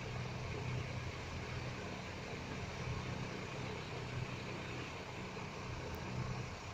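Steady low hum under an even background noise, with no distinct events.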